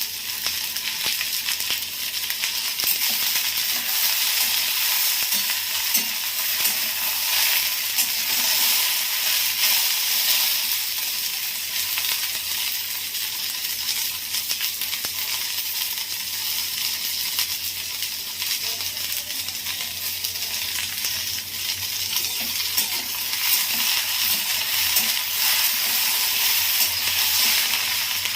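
Thinly sliced okra frying in hot oil in a kadai: a steady sizzle, with small scrapes and taps as a spatula stirs it now and then.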